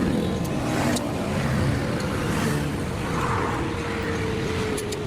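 Road traffic: motor vehicles running and passing by, with a steady engine drone and noise that swells and fades as they go past.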